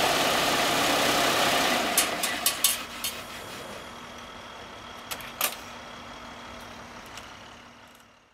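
Heavy vehicle engine running, dropping away about three seconds in, with a few sharp clicks and knocks; it all fades out at the end.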